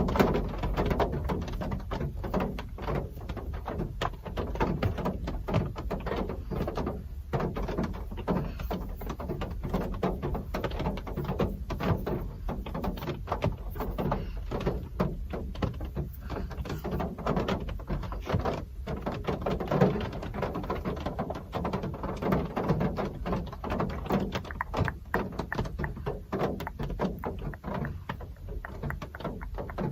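Real rain falling, heard as a dense run of irregular drop ticks over a steady low rumble.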